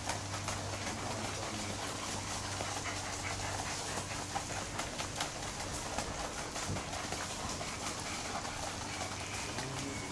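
Quick, soft hoofbeats of a Paso Fino horse gaiting on sand, over a steady low hum.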